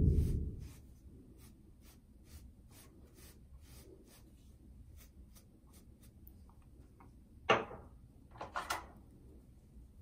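Bristle beard brush stroking through a short beard: a loud close scrub fading in the first second, then light regular strokes about three a second. Near the end, two short louder rustles of fingers working the beard.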